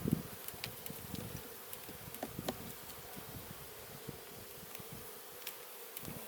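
Honeybees buzzing around an open hive with a steady hum, swelling and fading as bees fly past close by. There are a few light clicks.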